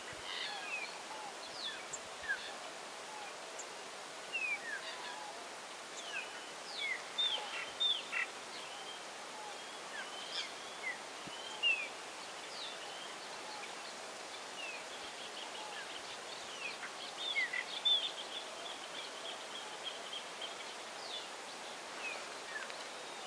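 Wild birds chirping and calling over a steady outdoor hiss: many short, high, quick notes scattered throughout, with a long rapid trill of repeated high notes from about two-thirds of the way through.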